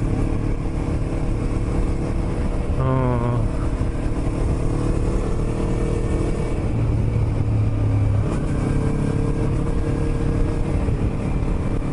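Yamaha YZF-R25 parallel-twin motorcycle engine running steadily while cruising, heard from the rider's own bike with wind noise on the microphone. The engine note shifts about two-thirds of the way through as the throttle changes.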